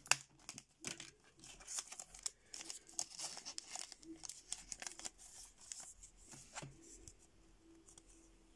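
Clear plastic bag crinkling and rustling in the hands as a card is worked out of it: quick, irregular crackles that stop well before the end.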